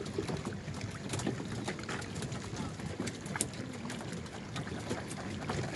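Wooden sticks knocking irregularly on the hulls of outrigger fishing canoes: many short, sharp knocks from several boats over steady wind and water noise.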